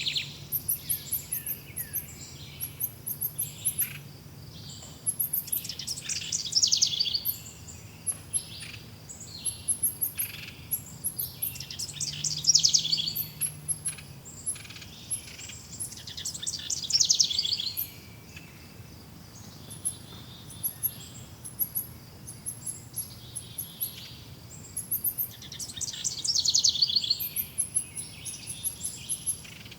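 Several birds singing: one repeats a loud, rapid song of many quick notes every five or six seconds, over a steady scatter of thin, high chirps.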